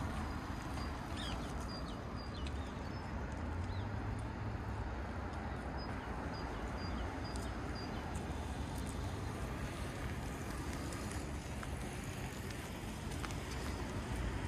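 Park ambience: a steady low rumble of distant traffic and wind, with a few faint high bird chirps.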